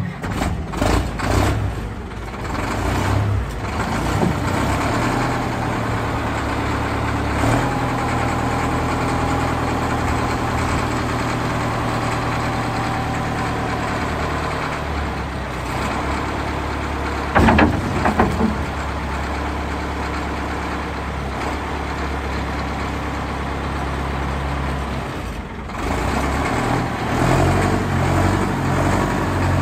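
A 1963 Caterpillar 944A wheel loader's diesel engine running, its pitch shifting a few times as the hydraulic lift arms raise the bucket. A few sharp, loud knocks come about halfway through.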